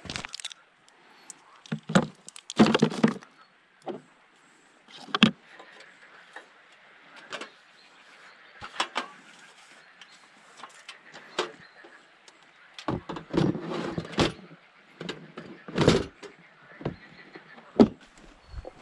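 Irregular clicks, knocks and clatter of camping gear being handled and packed: a portable gas stove and its plastic carry case, with a few heavier thumps and crunching steps on loose stones.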